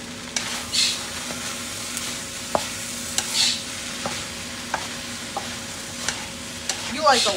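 Wooden spatula stirring a stir-fry of rice and vegetables in a nonstick wok over a steady frying sizzle, with scraping swishes and short knocks of the spatula against the pan every second or so.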